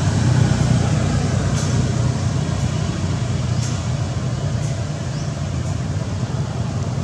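A steady low rumble, with a faint high chirp about once a second.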